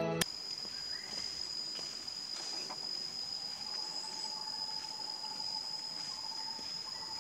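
Insects droning with one steady high-pitched tone, a fainter hiss above it; a second, lower steady tone joins about three seconds in.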